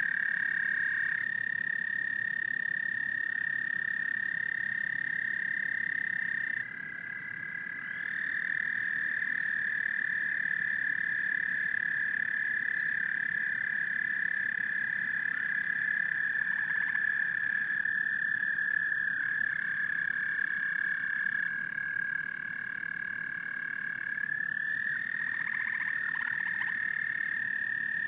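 A chorus of frogs trilling continuously, several high, steady trills overlapping; the level drops briefly about seven seconds in and again about twenty-two seconds in as the layers change.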